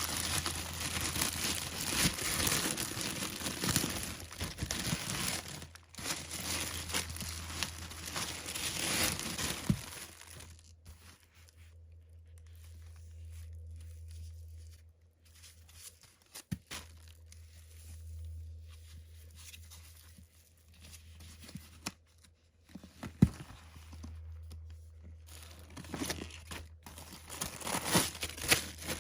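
Packaging crinkling and tearing as a bag is unwrapped. The handling dies down about a third of the way in, leaving a low steady hum with a couple of sharp clicks, and the crinkling picks up again near the end.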